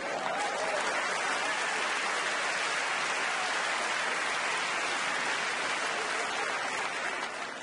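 A large theatre audience applauding, the clapping steady and dense, dying down near the end.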